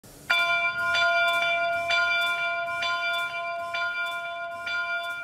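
A single bell struck repeatedly, about twice a second, each stroke ringing on into the next at the same pitch.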